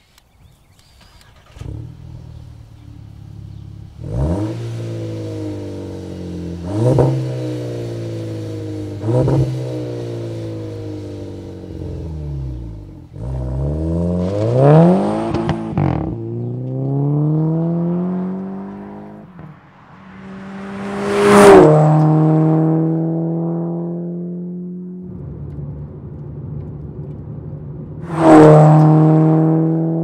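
Volkswagen MK6 GTI's turbocharged 2.0-litre four-cylinder running through a COBB turboback exhaust, accelerating with the pitch rising and falling through the revs. About two-thirds of the way through, and again near the end, it passes close by loudly, the pitch dropping as it goes.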